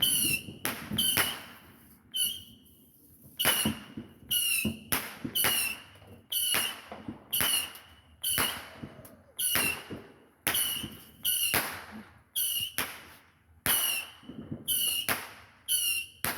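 Consumer fireworks going off in a steady series of sharp shots, a little more than one a second. Each shot is a crack with a brief whistling tone and high crackle.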